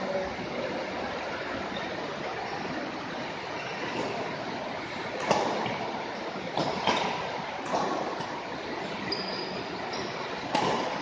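Badminton rally: about six sharp racket strikes on a shuttlecock, starting about halfway through, over a steady hiss of hall background noise.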